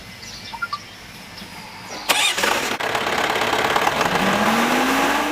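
Trailer concrete pump's power unit starting up about two seconds in, then running with a pitch that rises near the end.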